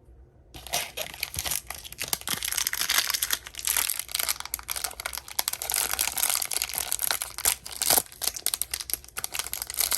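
A small toy-figure wrapper being torn open and crinkled by hand: continuous crackling with many sharp little ticks, starting about half a second in.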